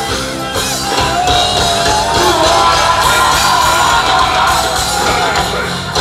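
Loud live Ugandan pop music over a concert PA, with a heavy steady bass beat and a man singing and shouting into a microphone over it.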